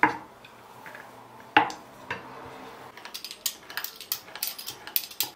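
Kitchenware being handled: two sharp knocks, then a quick run of light clinks and clatter near the end.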